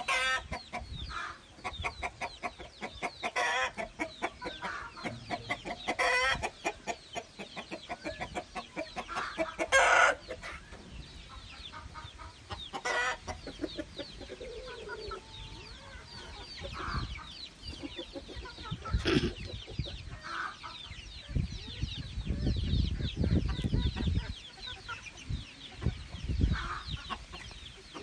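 Chickens clucking in repeated short calls, busiest and loudest in the first ten seconds or so, with a low rumble about two-thirds of the way in.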